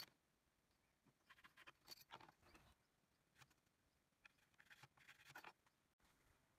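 Very faint scratching of a pencil drawing lines on a wooden plank along a steel ruler and try square, in two short spells, after one sharp click at the very start.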